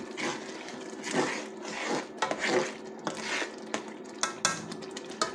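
Metal spoon stirring and scraping masala frying in oil in an aluminium pot, in quick repeated strokes, with a few sharp clinks against the pot near the end. A steady low hum runs underneath.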